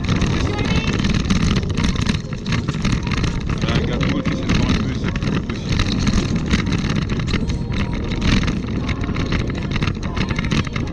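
Wind noise on the microphone of a handlebar camera while riding along a paved path, with steady road noise and many small rattles and knocks from the ride.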